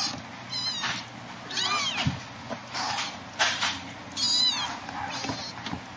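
Kittens mewing: about four short, high-pitched mews that rise and fall, with brief scuffling noises between them as they move about.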